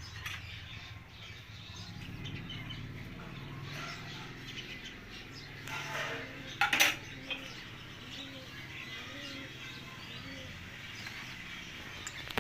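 Pet green parrot chattering softly, with two loud sharp squawks about six to seven seconds in.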